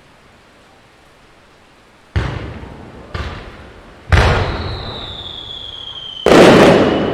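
Aerial firework shells bursting: four loud booms, each fading out slowly, the last and loudest near the end. Between the third and fourth booms a whistle holds and slowly drops in pitch, ending as the last boom goes off.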